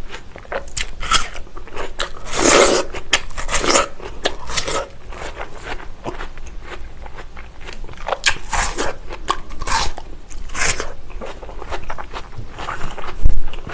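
Close-miked biting and chewing of watermelon flesh near the rind, with crunching bites coming in irregular clusters. A single low thump near the end is the loudest sound.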